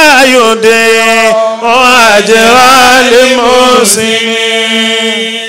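A man chanting a recitation in long melodic phrases, his pitch bending and wavering within each phrase, ending on a long held note for the last second and a half.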